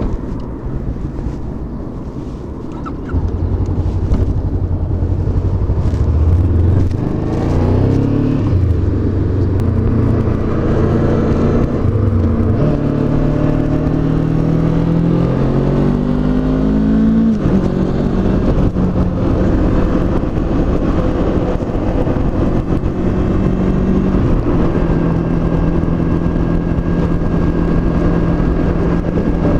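Honda CB500X's 471 cc parallel-twin engine pulling hard up through several gears, its note rising and dropping back at each upshift, then settling to a steady cruise, with wind rushing over the microphone.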